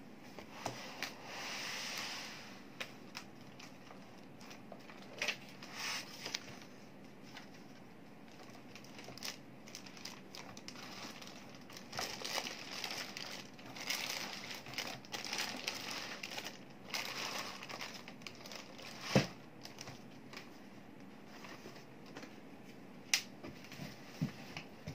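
Plastic packaging crinkling and rustling in irregular spells as air-column cushion wrap and a clear plastic bag are handled around a boxed label printer, with scattered clicks and a sharp knock about 19 seconds in.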